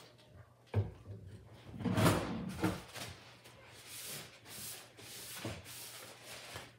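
Handling sounds at a desk: a single knock, then a louder clatter about two seconds in as objects are set down, followed by paper rustling and shuffling.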